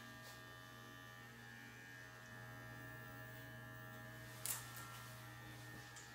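Electric dog grooming clippers running with a steady, faint hum, with one short click about four and a half seconds in.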